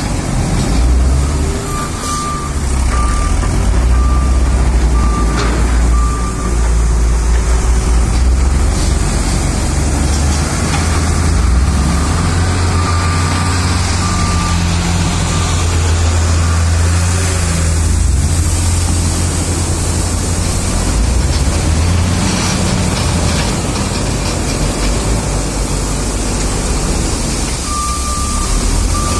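Heavy construction machinery, a backhoe loader and dump trucks, running with a deep steady diesel engine rumble. A reversing alarm beeps in a regular series a couple of seconds in, faintly again midway, and once more near the end.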